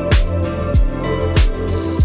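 Background music: a song with a steady drum beat, about one and a half beats a second, over sustained instrumental tones.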